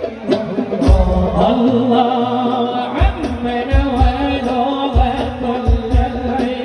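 Sholawat singing accompanied by a hadroh ensemble of rebana frame drums, the voices held over deep drum strokes beating a repeating rhythm.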